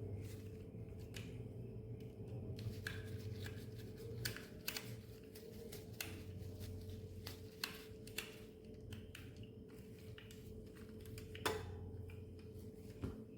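Small plastic parts of a toy bulldozer being handled and fitted, making irregular light clicks and taps, with one sharper click about two-thirds of the way in, over a steady low hum.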